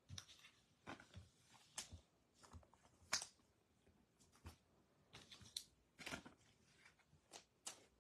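Baseball trading cards being handled and slid against one another as a pack is flipped through: a string of soft, irregular flicks and rustles, the loudest about three seconds in.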